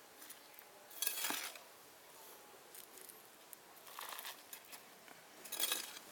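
Three short bursts of dry rustling and scraping, as loose husk-based potting medium is handled and tipped into a small plastic pot; the first, about a second in, is the loudest.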